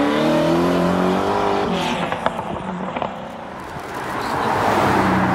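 Sports car engines on a public road. One car's engine note climbs as it accelerates away. Near the end an Aston Martin convertible comes up and drives past, its engine and tyre noise growing louder.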